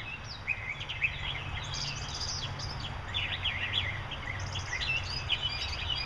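Many small birds chirping and twittering at once, quick overlapping chirps throughout, over a steady low rumble.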